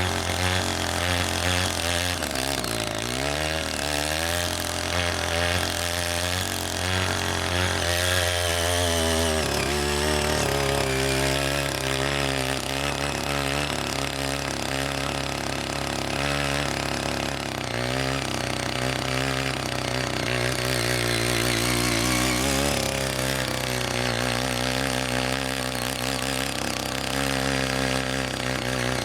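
CY80 mini tiller's small engine running under load as its rotary tines churn mud and water, engine pitch wavering and shifting several times with the changing load.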